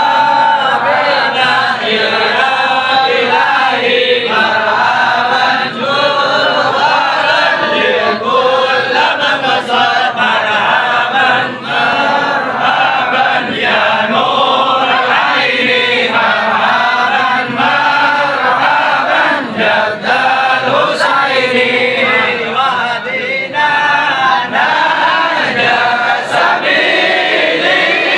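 Large group of men chanting together in unison, a loud, unbroken devotional chant of many overlapping voices.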